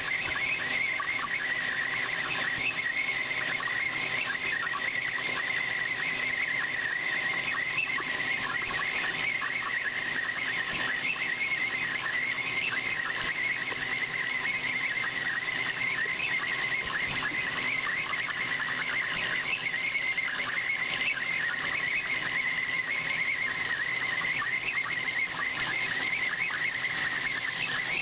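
Cosen C-520NC horizontal bandsaw blade cutting through 15-5 PH stainless steel: a steady, slightly wavering high-pitched whine over hiss and a low constant machine hum.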